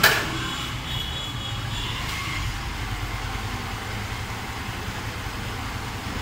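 Yamaha FZS-Fi V3's single-cylinder engine idling steadily, with one sharp knock right at the start.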